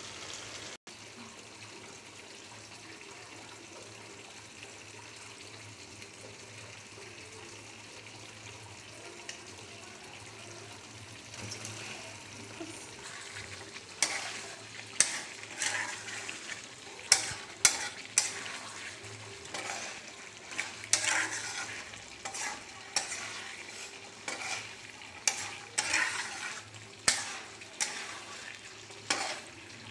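Chicken and potato curry sizzling and simmering in a black wok, then, from about halfway, a spatula stirring it, scraping and knocking against the pan roughly once a second.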